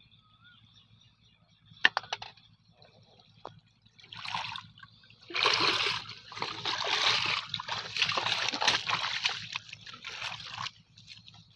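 Shallow muddy water splashing and sloshing around a person's legs as they wade out of it, loudest for about five seconds from the middle on; a sharp click shortly before.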